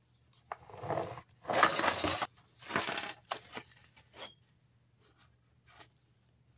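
Pringles cans handled by a hand in a thin plastic glove: several bursts of rustling and scraping over the first four seconds as the cans are moved on a wooden table and one is picked up, then a faint tap near the end.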